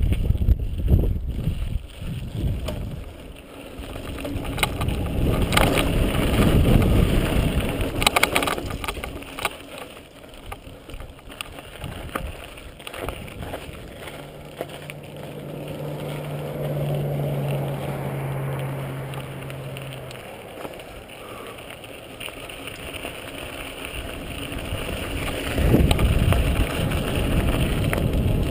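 Mountain bike descending a dirt and gravel trail: wind rushing over the helmet camera's microphone and tyres rolling on loose ground, with knocks and rattles over bumps. The rush is loudest at the start and again near the end, and a steady low hum sounds for several seconds midway.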